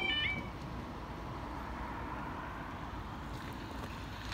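Level-crossing yodel alarm, a repeating warbling two-tone wail, cutting off a fraction of a second in as the barriers come fully down. Then a steady background hiss of wind and distant road traffic.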